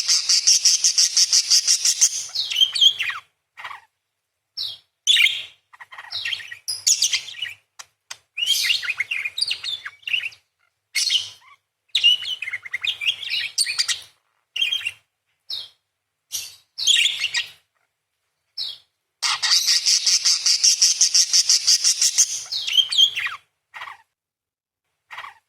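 Parakeet calling: long, rapid, rasping chattering trills lasting about three seconds each, one at the start and another about two-thirds of the way through. Between them come shorter, sharp chirps and twittering phrases.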